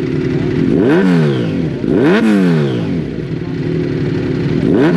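Motorcycle engines running with the throttle blipped three times, each rev rising sharply and falling back between steady running.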